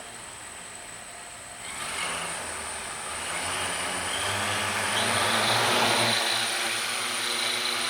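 Electric motors and propellers of a 3D-printed Inspire-clone drone spinning up about two seconds in, with the whir rising in pitch and level as the drone throttles up, then holding a steady hover hum. This is the drone's first flight on its new ESCs.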